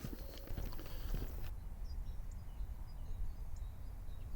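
Wind buffeting the microphone as a low rumble, with footsteps on the path in the first second and a half, then a few faint bird chirps.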